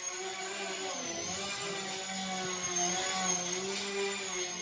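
Small electric RC plane's motor and propeller whining, its pitch rising and falling as the throttle is worked.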